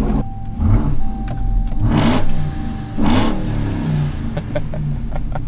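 The Ram TRX's supercharged 6.2-litre V8 running at idle through an AWE 0FG exhaust, with short louder surges in the first three seconds. There is a thin steady tone in the first half and several light clicks near the end.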